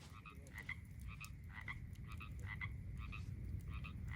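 Frogs calling at night, short two-note croaks repeating about twice a second over a steady low rumble.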